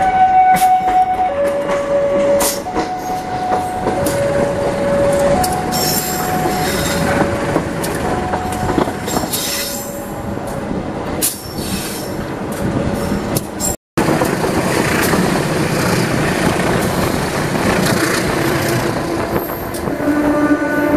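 A train passing close by with wheel clatter and squeal, while a two-tone warning signal alternates high and low about once a second for the first nine seconds or so. Near the end the horn of the CC 203 diesel locomotive starts to blow a chord of several notes.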